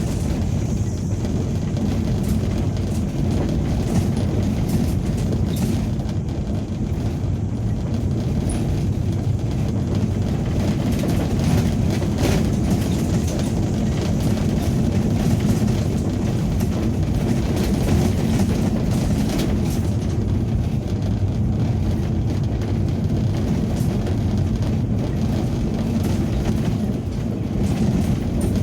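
Ambulance driving along a forest road: a steady low road and engine rumble with faint scattered rattles and knocks.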